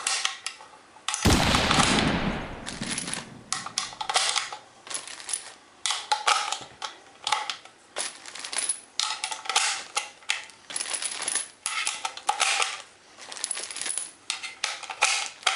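Loose brass rifle cartridges clinking and clicking as they are handled and pressed one by one into an AK-47 magazine, about one to two clicks a second. About a second in there is a loud clatter of metal cartridges.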